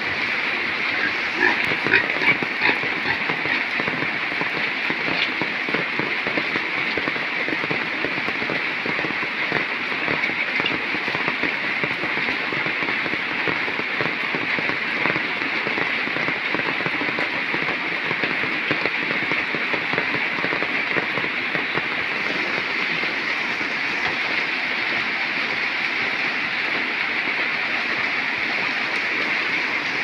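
Steady hiss of running and splashing water, with a few light knocks about two seconds in.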